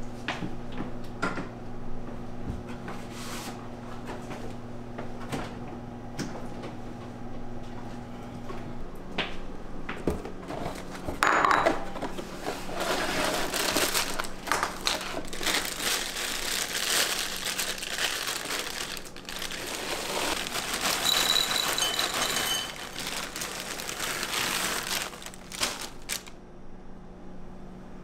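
Dry O-shaped cereal poured from its box into a ceramic bowl: dense rattling and clicking starting about eleven seconds in and stopping a couple of seconds before the end. Before that, soft handling knocks over a steady low hum.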